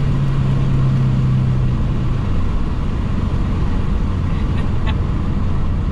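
Cabin drone of a 2020 Subaru STI's turbocharged 2.5-litre flat-four cruising on the highway, with steady road noise; the engine note steps down in pitch about two seconds in.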